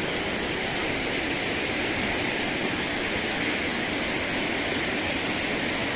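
Steady, even rush of a mountain waterfall and its white-water torrent.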